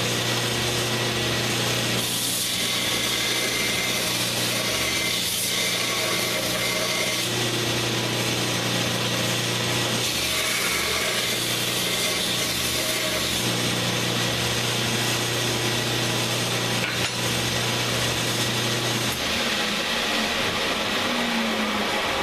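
Homemade 2x72 inch belt grinder running, its electric motor driving the abrasive belt over longboard-wheel idlers with a steady rushing, rubbing noise. A low hum under it drops out near the end while the belt noise carries on.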